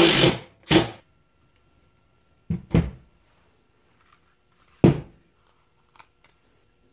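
A cordless brushless impact driver gives two short bursts as it backs out a small Phillips screw. Then two sharp plastic clacks follow a couple of seconds apart as the mouse's plastic shell is pried open by hand.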